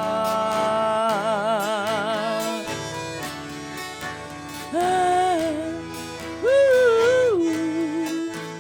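Sertanejo song: a sung note held with vibrato ends about two and a half seconds in, then two short melodic phrases sliding in pitch play over the band's accompaniment.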